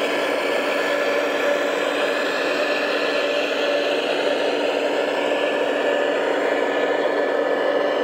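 A radio-controlled model construction machine running with a steady motor whir that holds one pitch throughout.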